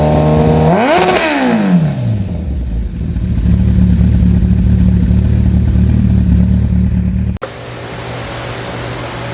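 2013 Kawasaki ZX-14R's 1441 cc inline-four running through a Brock's full exhaust: held at steady revs, blipped up and quickly back down about a second in, then running steadily again. The engine sound cuts off abruptly about seven seconds in, leaving a steady low hum.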